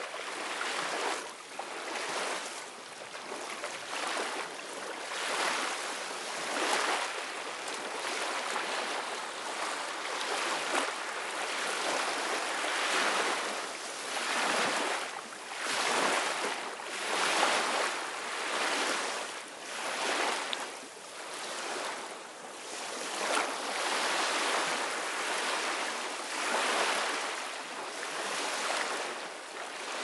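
Ocean waves washing and surging without pause, each swell rising and easing every couple of seconds.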